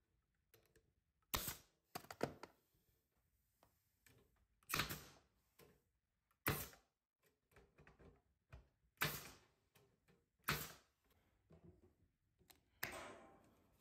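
Pneumatic stapler firing staples through wire mesh into a wooden frame: about seven sharp shots, each with a short hiss of air, spaced one to two seconds apart.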